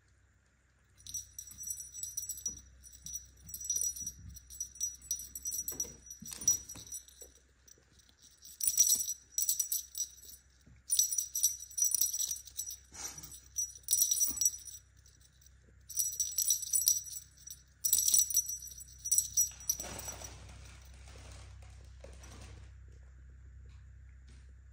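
Small brass jingle bell on a feather wand cat toy jingling in repeated shaken bursts, on and off, as kittens bat at the toy. Near the end the jingling stops and a short soft rustle follows.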